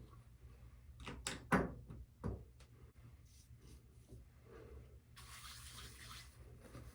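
Things handled with a few light knocks and clatters, the loudest about a second and a half in, then a steady hiss that starts about five seconds in.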